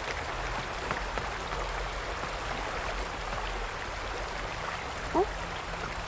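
Steady splashing of a small waterfall pouring into a garden pond. About five seconds in comes one short rising call.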